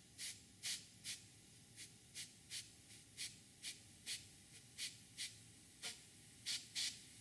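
Faint short puffs of compressed air from an air nozzle pressed into a clear tube on a tire valve stem, about two a second, tapped on and off to blow ceramic balancing beads down into the tire.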